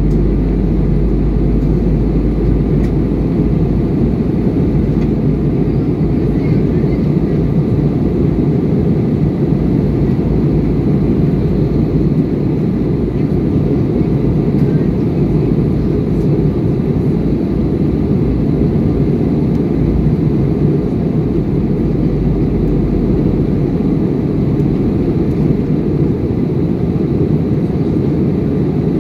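Airbus A320-200 cabin noise heard from a window seat over the wing during descent: a steady, even rumble of airflow and engines, strongest in the low range, with a few faint steady tones above it.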